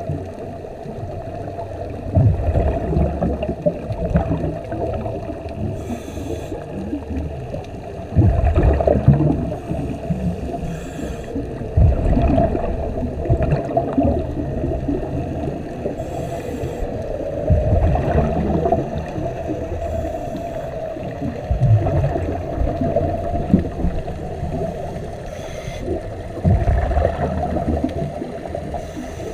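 Scuba diver breathing through a regulator, heard underwater: every four to five seconds a short hiss of inhalation, then a louder low gurgle of exhaled bubbles, over a steady muffled hum.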